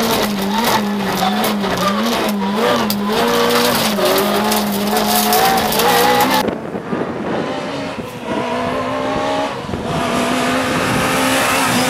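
A Citroën Saxo VTS rally car's four-cylinder engine, first heard from inside the cabin, its pitch rising and falling quickly as the throttle is worked, with many clicks and rattles. About six and a half seconds in, the sound switches to the roadside: the same engine is heard from outside as the car approaches, its note climbing, with tyre hiss growing near the end.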